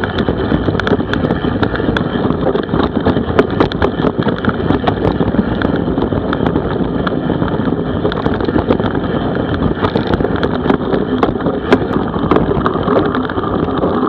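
Wind rushing over the camera microphone of a mountain bike, with constant rattling and sharp clicks as the bike rolls over a rough dirt trail.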